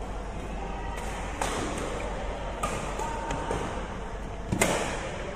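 Badminton rackets striking a shuttlecock in a rally: several sharp cracks spaced a second or two apart, the loudest near the end, each briefly echoing in the large hall.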